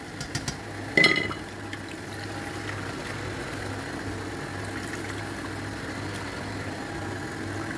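A knock about a second in, then tap water running steadily into a plastic bowl of fish, filling it to rinse the fish.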